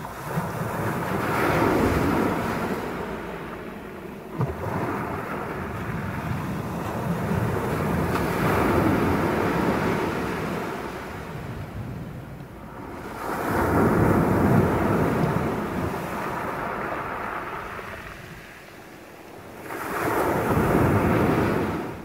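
Sea waves breaking and washing up a pebble (shingle) beach, swelling and fading four times, each surge rising and dying away over a few seconds.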